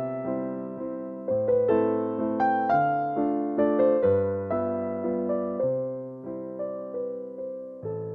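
Background music: gentle solo piano playing slow chords and a melody, the notes struck and left to fade.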